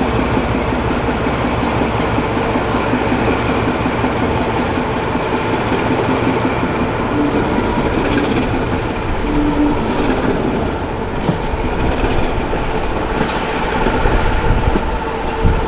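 Class 14 diesel-hydraulic locomotive running with a steady engine whine over a dense rumble, with wheels clicking over rail joints.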